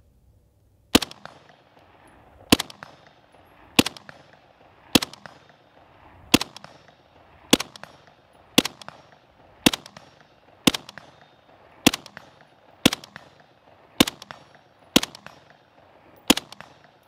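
Steyr AUG bullpup rifle in 5.56×45 NATO firing fourteen aimed semi-automatic shots at a steady pace of about one a second, each crack followed by a short echo.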